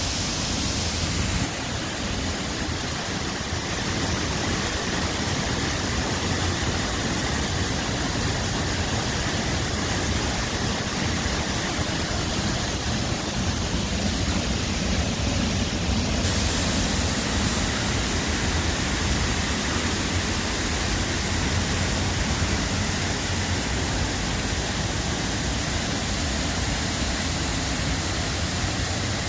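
Steady roar of a large waterfall, an even rushing noise heaviest in the low end.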